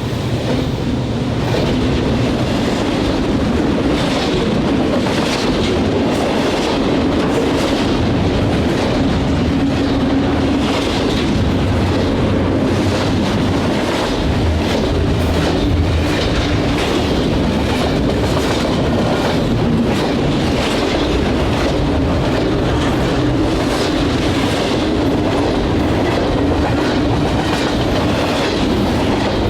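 Train passing, its wheels clicking steadily over the rail joints car after car.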